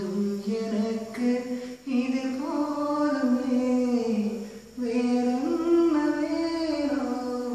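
A young man singing unaccompanied, a melodious song of long held notes that step up and down in pitch, with short breaks for breath twice.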